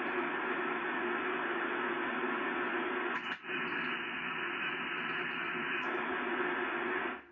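Loud, steady receiver hiss from a ham transceiver's speaker (ICOM IC-746 Pro) tuned to a frequency with no signal on it. It switches on abruptly, cuts out for a moment about three and a half seconds in, and stops abruptly near the end.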